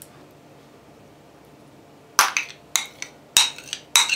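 Kitchenware being handled: five or so sharp knocks and clinks of hard objects against the jug and dishes, coming in a quick run over the last two seconds after a short quiet spell.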